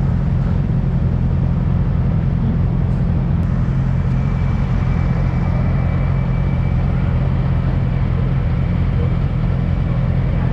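Husqvarna 701 Supermoto's single-cylinder engine running at a steady, unchanging pitch, with a faint thin high whine over the first half.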